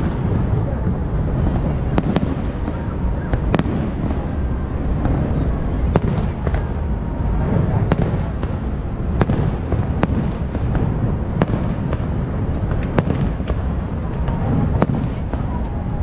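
Fireworks display: aerial shells bursting in an irregular series of sharp bangs, about one or two a second, over a steady low rumble.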